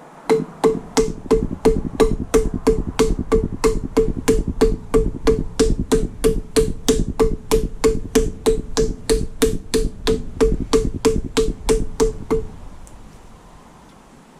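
Rapid, evenly spaced metal-on-metal strikes, about three a second, each with a short ringing note. They stop abruptly about twelve seconds in.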